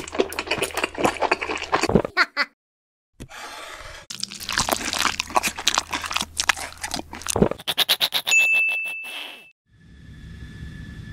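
Busy clicking and clattering sound effects in two runs with a short pause between, then a bell-like ring over a fast rattle. From about ten seconds, the steady hum and high whine of a jet airliner in flight.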